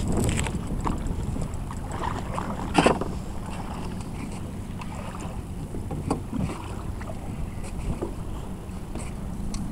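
Wind buffeting the microphone and water lapping against a small open boat's hull. A single sharp knock comes about three seconds in, and a weaker one about six seconds in.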